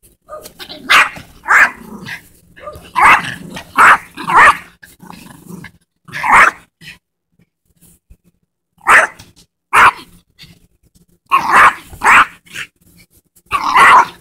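Small Yorkshire terrier barking in play: sharp, high-pitched barks, mostly in pairs or short runs, with pauses of a second or two between them.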